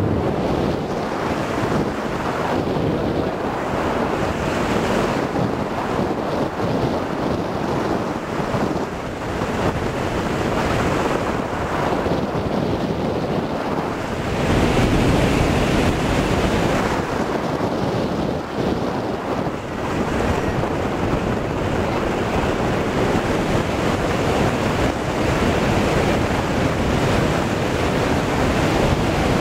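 Rush of wind buffeting the microphone of a camcorder taped to a hang glider's control bar in flight, a steady noisy rush with no tones, swelling louder and deeper about halfway through.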